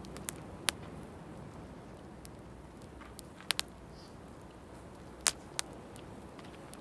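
Wood bonfire crackling, with a handful of sharp pops and snaps scattered irregularly over a steady low rushing background.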